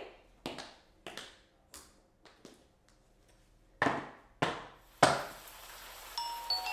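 Tap shoes clicking on a wooden floor as a dancer walks, about one step every half second or so: light taps at first, then after a short lull three louder strikes. Music starts just before the end.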